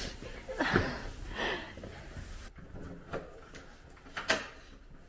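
Handling and shuffling noises of moving about, then sharp clicks of a hotel room door's handle and latch in the second half.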